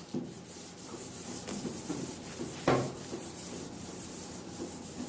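Wet sanding of a car's clear coat with 600-grit sandpaper on a hand pad: repeated back-and-forth rubbing strokes, with one louder scrape about halfway through.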